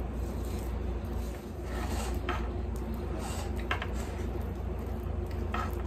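Knife spreading frosting on a cake, with a few brief scrapes against the cake and plate, over a steady low hum.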